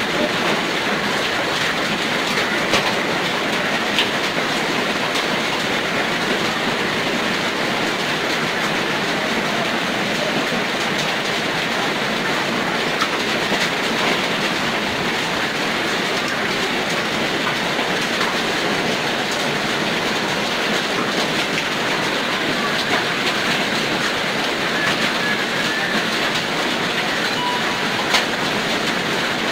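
Hail and heavy rain pelting hard surfaces: a loud, steady hiss with scattered sharp ticks of hailstones striking.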